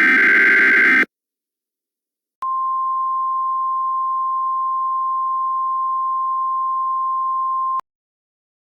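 Emergency Alert System signal: a buzzy burst of SAME digital header data ends about a second in. After a short silence comes a single steady attention tone of about 1050 Hz, lasting about five seconds and cutting off sharply.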